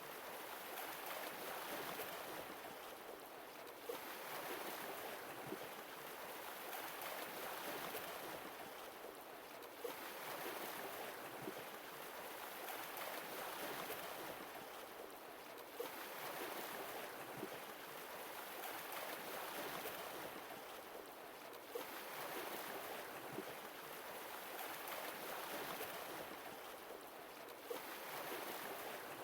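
Sea waves washing ashore, the wash swelling and easing about every six seconds.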